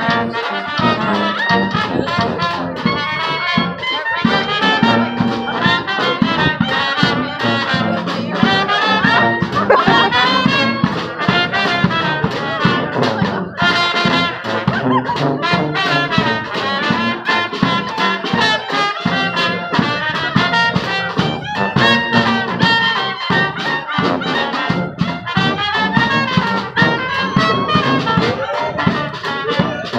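A small street brass band playing a tune: trumpet and trombones with a bass horn carrying the low line, over a steady beat from a bass drum and a snare drum.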